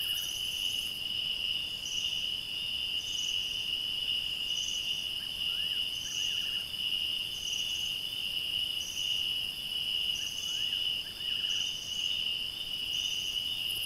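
Night chorus of crickets and other insects: a steady high-pitched trill with a short chirp repeating about every second and a half. Twice a faint short rising call from another animal joins in.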